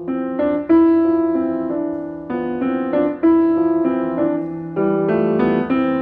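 Background piano music: a slow run of struck notes and chords, each fading after it is played, over a held low note.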